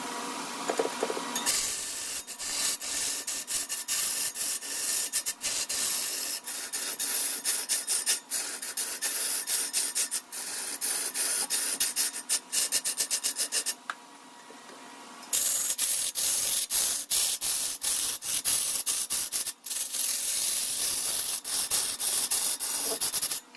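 Wood being worked on a turning lathe: a tool or abrasive scraping and rasping against the spinning workpiece with rapid, uneven ticks, in two long passes with a short lull about 14 seconds in.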